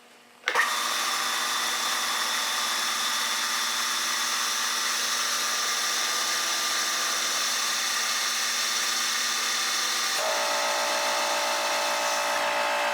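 Two-spindle drilling machine starting about half a second in and running steadily, a whine made of several fixed tones; about ten seconds in a new, lower tone joins the run.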